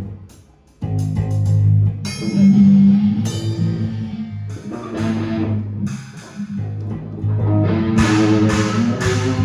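Rock band rehearsing: electric guitar chords ringing over drum hits, coming in after a brief gap at the start.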